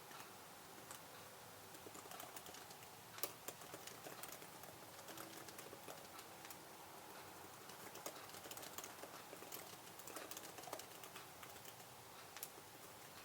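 Computer keyboard typing: a faint, irregular run of keystroke clicks, starting about two seconds in and stopping near the end.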